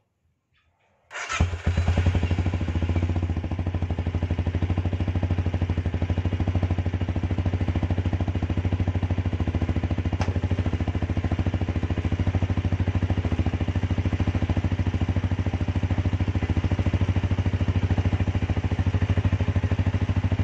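Benelli Imperiale 400's single-cylinder engine starts about a second in and settles into a steady idle with an even, regular pulse.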